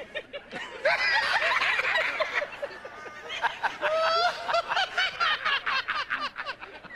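Men laughing hard in rapid, choppy bursts, softer at first and much louder from about a second in.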